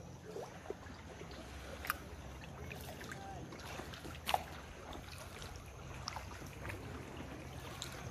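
Canoe being paddled through calm water: soft splashing and dripping from the paddle strokes, with two sharp knocks about two and four seconds in.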